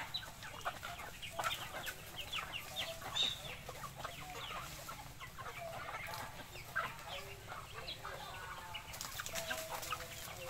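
A flock of chickens, hens and young chicks, clucking and chirping as they feed, with many short calls overlapping throughout.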